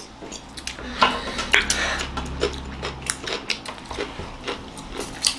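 Brass dinner plates clinking and scraping as food is scooped up by hand, with scattered short clicks and taps of metal on the table.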